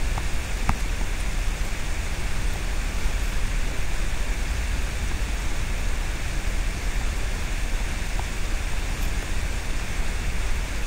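Steady hiss with a low hum underneath: the recording's constant background noise, with no distinct event.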